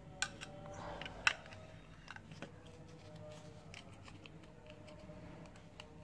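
Faint handling noise as a power bank's plastic case, circuit board and cylindrical lithium cell are fitted together: a few sharp clicks and taps, the two loudest within the first second and a half, over a low steady hum.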